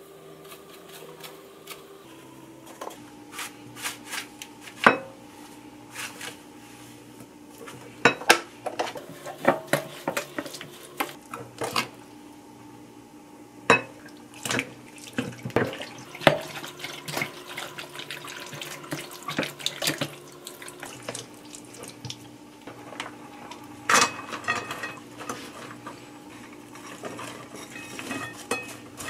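A wooden spoon stirring a wet chili-pepper marinade in a glass mixing bowl, with irregular clinks, knocks and scrapes against the glass. Near the end, sliced onions are tipped from a glass bowl into a pot.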